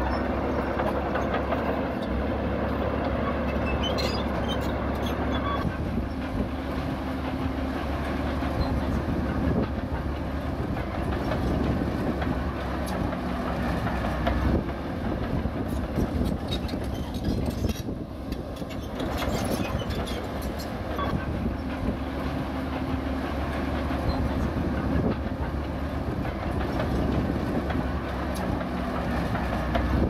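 Zoomlion ZD160S-3 crawler bulldozer working: its diesel engine runs steadily, its note shifting now and then, while its steel tracks clatter and clank.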